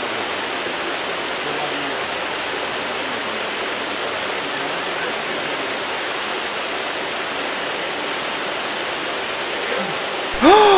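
Steady rushing of water running into a seawater fishing pond, an even hiss-like rush with no breaks. Near the end a short pitched tone rises and then falls.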